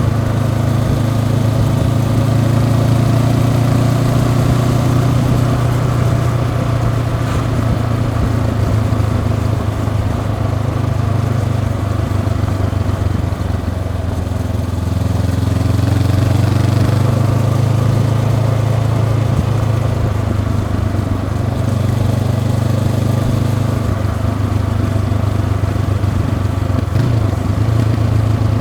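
Honda CB500X's parallel-twin engine through its stock exhaust, running steadily under way. It eases off slightly about twelve seconds in and picks back up a few seconds later.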